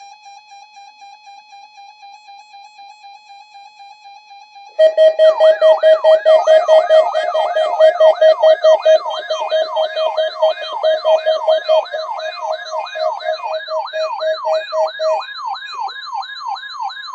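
A steady, slightly warbling electronic tone, then about five seconds in a loud electronic siren alarm starts. It gives rapid rising whoops, about two and a half a second, over a steady tone and a pulsing beep, and the beep stops near the end. This is the alarm of a NOAA Weather Radio weekly test: the warning tone and the receivers' siren alarms it sets off.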